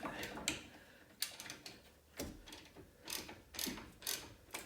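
Socket ratchet clicking in short, irregular bursts with light metal knocks, working a freshly loosened, rusted brake caliper bracket bolt.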